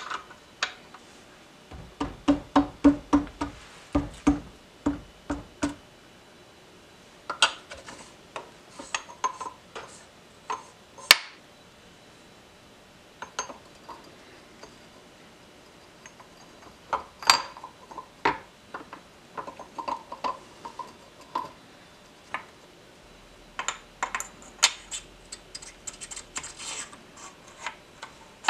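Steel gears of a 1950 Harley-Davidson Panhead engine's gearcase clicking and clinking as they are slid onto their shafts and meshed by hand. Irregular clusters of sharp metallic clicks, some ringing briefly, with short quiet gaps between; a quick run of clicks comes about two seconds in.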